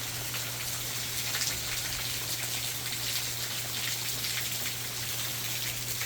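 Heavy rain falling steadily, with many close drops spattering.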